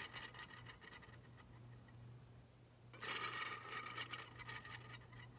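Small plastic basketball on a trophy spun by hand, a faint fast-ticking whirr of it rubbing on its pivot that dies away just after the start and comes again about three seconds in, slowing and fading. A steady low hum runs underneath.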